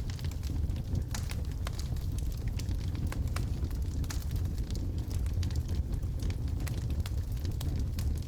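Wood fire of burning logs in a fireplace: a steady low rumble of flames with frequent irregular sharp crackles and pops from the wood.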